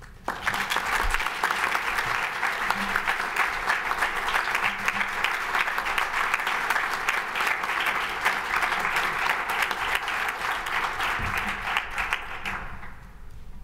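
Audience applauding, a dense clapping that starts suddenly and dies away near the end.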